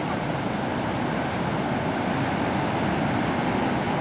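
Steady rushing noise of ocean surf and wind, even throughout with no distinct events.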